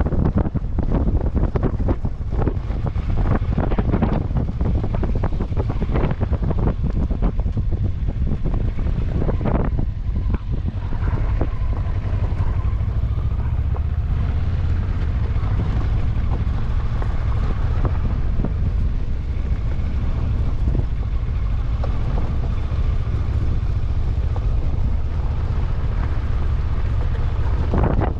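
Vehicle driving off-road, its engine rumbling under heavy wind buffeting on the microphone, with knocks from bumps over rough ground in the first half.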